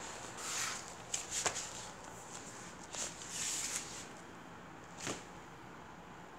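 Several short, hissy rustles, with a couple of sharp ticks, in the first five seconds over a faint steady hiss.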